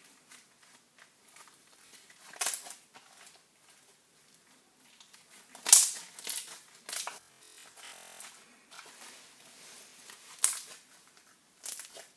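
Slime being kneaded and pressed by hand, with faint squelching and scattered sharp crackling pops, the loudest about a third and halfway through.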